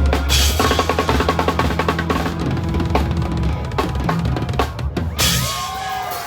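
Rock rhythm section: a drum kit plays rapid snare and bass-drum strokes over a sustained bass line. About five seconds in, bending, sliding notes from an electric guitar come in.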